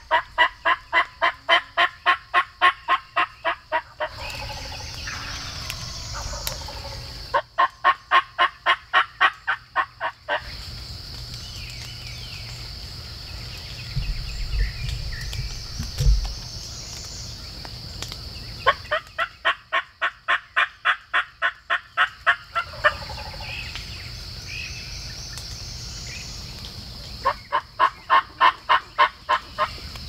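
Turkey yelping: four runs of evenly spaced yelps, about three or four a second, each run lasting three to four seconds, over a steady high insect hum.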